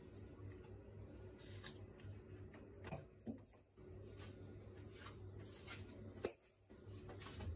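Faint steady low hum with a few soft clicks and taps from a hand handling things beside an electric ceramic herbal-medicine pot, the clearest about three seconds in and again just after six seconds.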